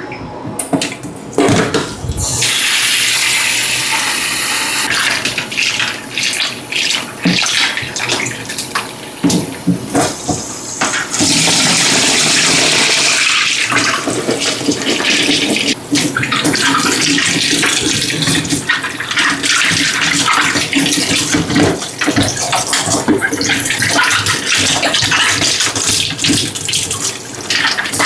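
Water running from a kitchen tap into a sink in spells, strongest about two seconds in and again about eleven seconds in, as soaked apples and plums are drained and rinsed. Many short knocks and clatter from the fruit and its container being handled in the sink.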